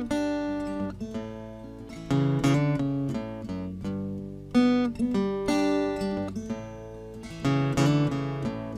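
Acoustic guitar playing chords, each strum fading before the next, as an instrumental introduction to a song.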